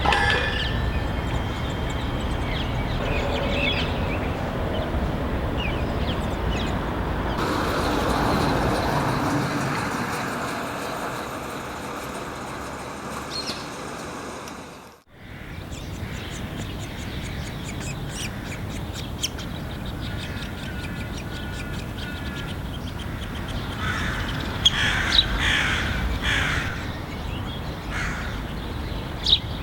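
Harsh bird calls over steady background noise, with a run of calls clustered a little before the end. The sound drops out briefly about halfway through.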